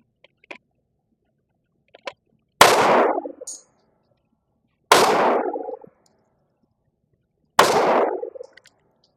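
Three shots from a Glock G44 .22 LR pistol, spaced about two and a half seconds apart, each with a short echoing tail. A few faint clicks come before the first shot.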